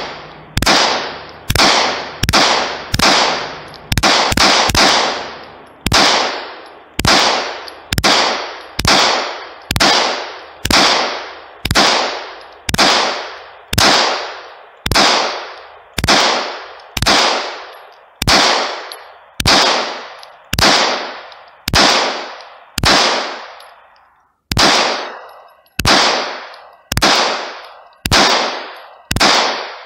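9mm Glock 17 pistol firing a steady string of single shots, about one and a half to two a second, each with a short echo. The even, unbroken rhythm shows the 50-round SHK drum magazine feeding without a failure to feed.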